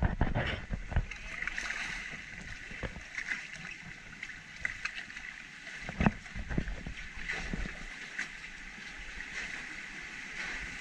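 Water rushing and lapping along a log flume trough as the log boat floats through it, with a few short knocks, the clearest about six seconds in.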